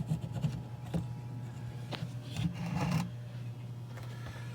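Hands handling parts during a diesel fuel filter change: a few small clicks and knocks, then a scraping rustle about two and a half seconds in, over a steady low hum.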